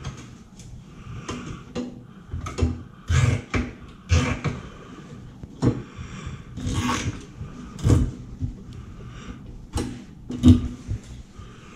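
Hands working zip ties and small fittings at the pump opening of a fuel cell's top plate: irregular clicks, taps and scrapes, with a sharper knock about eight seconds in and again near the end.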